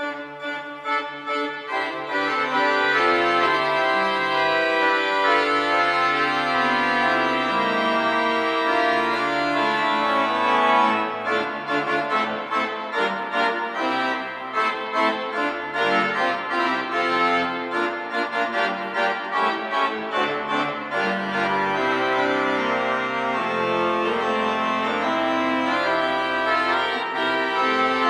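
Church pipe organ playing a piece, sustained chords and melody over low bass notes that change pitch. It enters abruptly, and a busier passage of quick notes comes near the middle.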